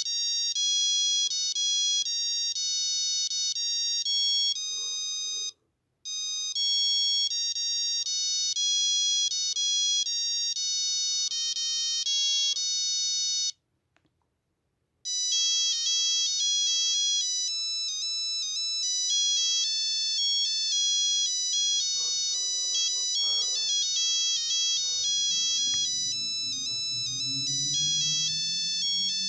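Nokia 8265i mobile phone playing its built-in ringtones through its small speaker: thin, high-pitched electronic melodies, one tune after another. The sound breaks off briefly about six seconds in and again for about a second and a half around fourteen seconds in, as one ringtone ends and the next begins.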